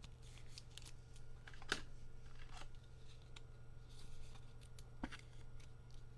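Faint handling of Topps baseball cards: soft swishes of cards sliding past one another as they are flipped through, with a couple of sharper snaps, about two seconds in and again near the end, over a steady low electrical hum.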